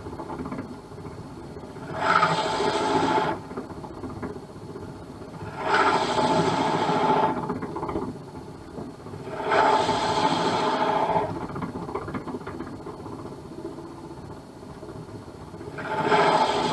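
Drill bit in the tailstock of a SIP 01936 lathe boring into a spinning acrylic pen blank, biting in four times for a second or so each, about every four seconds, with the lathe running more quietly between the cuts.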